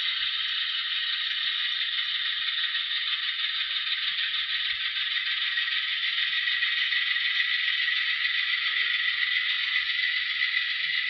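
Model railroad tank cars rolling slowly along the track: a steady, high-pitched rattle of the wheels on the rails.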